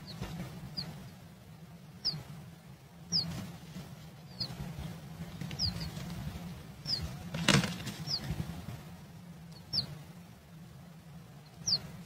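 Short, high, falling bird chirps repeated about once a second, with rustling of nest material and wing flutters from a blue rock thrush moving at its nest of chicks. The loudest flutter comes about halfway through.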